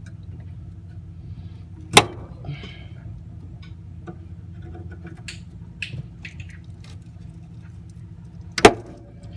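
Two loud, sharp knocks about six and a half seconds apart, with a few lighter clicks between, from hand tools working at the cotter pin on the master cylinder pushrod under the dash. A steady low hum runs underneath.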